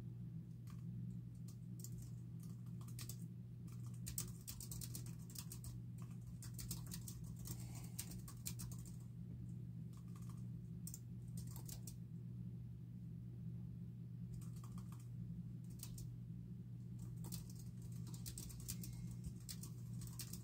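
Typing on a computer keyboard: quick runs of key clicks in bursts with short pauses between them, over a steady low hum.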